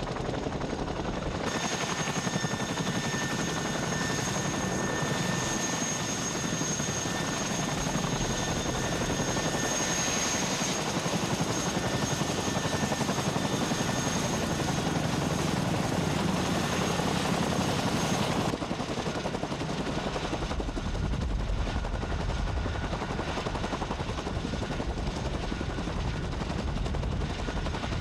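Boeing CH-47 Chinook twin-rotor helicopter running on the ground with both rotors turning: steady rotor beat under a high turbine whine from its twin turboshaft engines. The sound changes abruptly about a second and a half in and again after about eighteen seconds, when the high whine fades and a deeper rotor thudding takes over.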